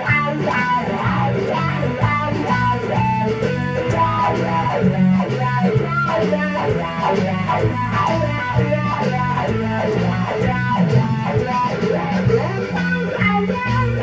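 Fender Stratocaster electric guitar played through an amp, a fast run of short picked notes, with a steady bass line underneath.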